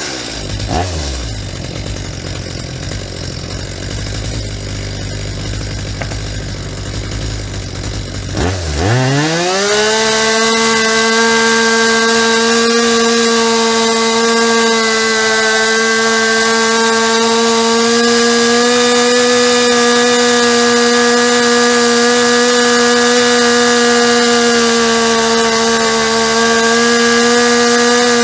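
Stihl MS250 two-stroke chainsaw engine idling, then about eight seconds in revved to full throttle and held there, running at a steady high pitch. The pitch shifts slightly a few times as the high-speed mixture screw is adjusted toward peak revs.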